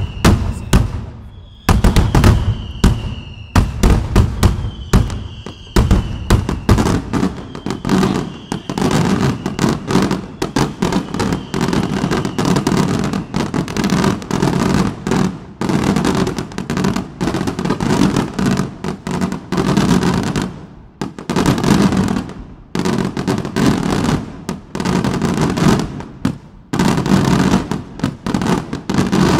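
Daytime aerial fireworks going off in a dense, near-continuous barrage of bangs and crackling. A high whistle falling slightly in pitch is heard several times in the first half.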